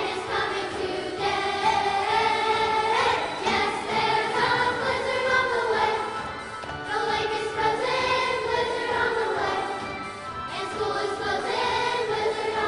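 Elementary school children's choir singing a song in unison, holding long notes.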